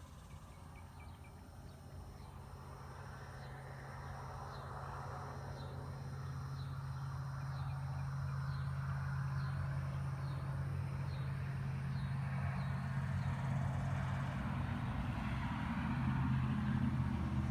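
A low engine hum that grows steadily louder, like a motor vehicle slowly drawing near. A faint, high, regularly repeated chirp sounds over it for the first part.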